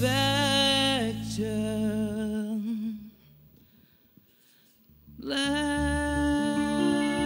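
Live band of female voice, bass guitar, drums and electric guitar holding long sustained notes. About three seconds in the music stops dead for a two-second break, then the band comes back in together on a long held note.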